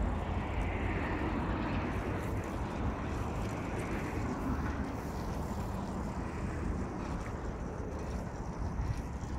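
Steady hum of distant road traffic, an even rumble with no separate events.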